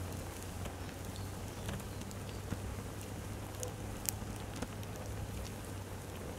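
Burning fluffy fabric trousers crackling softly, with scattered irregular small ticks and pops, the sharpest about four seconds in, over a steady low hum.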